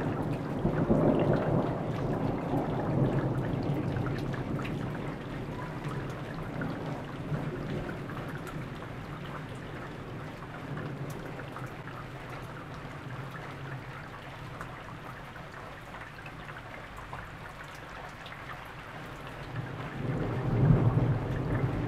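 Thunder rumbling and dying away over the first few seconds, with steady rain falling, then another roll of thunder swelling near the end.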